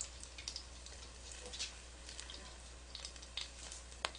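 Egg-battered pollock fillet frying in shallow oil: faint, irregular crackling and popping over a low steady hum, with one sharp click near the end.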